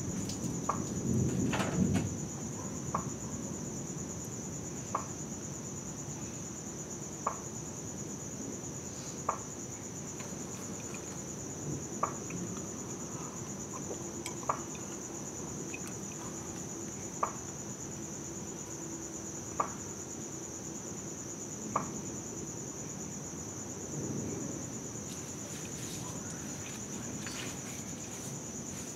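Night insects trill steadily at a high pitch, with a short sharp click every two seconds or so. A low rumble of distant thunder swells in the first two seconds and comes again briefly about 24 seconds in.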